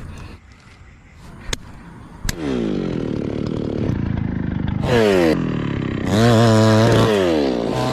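Chainsaw engine revving: it runs down, then is throttled up sharply about five seconds in and held at high revs before easing off near the end. A few sharp clicks come in the first couple of seconds.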